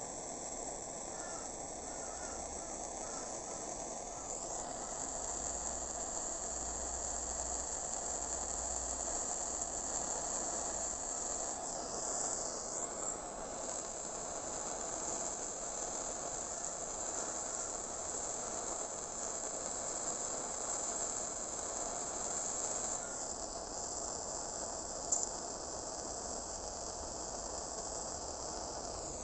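Handheld gas blowtorch burning with a steady hiss, its tone shifting a few times, with one brief click about 25 seconds in.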